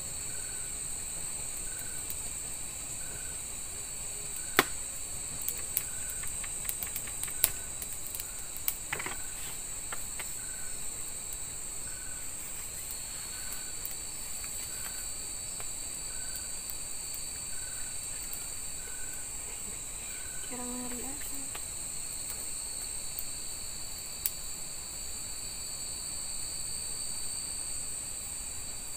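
Steady chorus of night insects, a high-pitched trilling drone, with a faint chirp repeating about once a second for most of it. A few sharp crackles come from a wood campfire.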